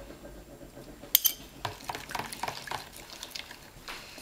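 A large metal spoon stirring a liquid mixture of gelatine and shower gel in a plastic bowl. The spoon clinks irregularly against the bowl, loudest a little over a second in.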